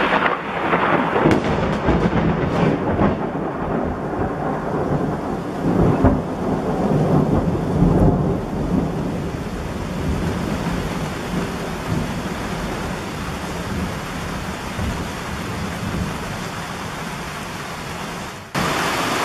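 Heavy thunderstorm: steady heavy rain with thunder rumbling and rolling, swelling to its loudest about six to eight seconds in and then fading. Near the end the sound switches abruptly to a louder, even rush of pouring rain.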